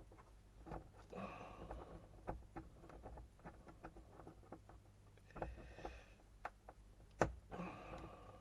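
Small parts of an RC nitro engine's pull starter being handled and fitted: irregular light clicks and taps of plastic and metal with soft rustling. One sharper click comes near the end.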